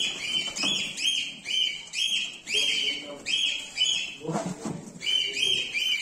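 Cockatiels screeching over and over while being caught and handled, in short shrill calls about two or three a second. The calls break off briefly a little past the middle, then start again.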